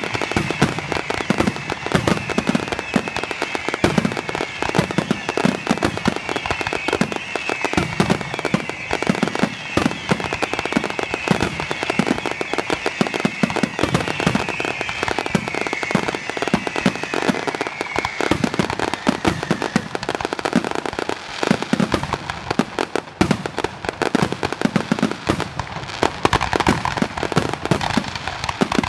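Fireworks display: a dense, unbroken barrage of aerial shell bursts and crackling, many bangs a second. A high wavering tone runs over the bangs and fades out about two-thirds of the way through.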